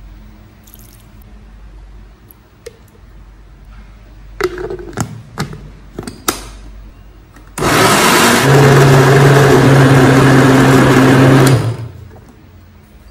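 Countertop blender jar handled with a few sharp clicks, then the blender motor runs steadily and loudly for about four seconds, blending avocado, whipping cream and lemon juice into a smooth purée, and stops abruptly.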